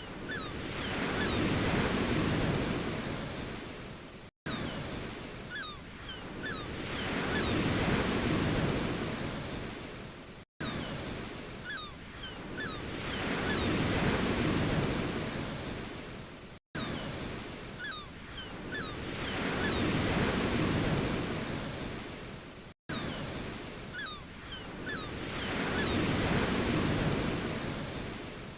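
Ocean waves washing in, each swell rising and fading about every six seconds. The same short stretch repeats as a loop, with a brief dropout between repeats.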